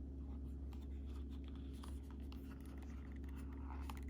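Hands handling a leather tool pouch, making faint scratching and rubbing sounds with a few light clicks, over a steady low hum.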